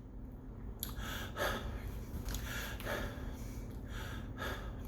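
A man breathing audibly, several short breaths through the pause, over a faint steady low hum.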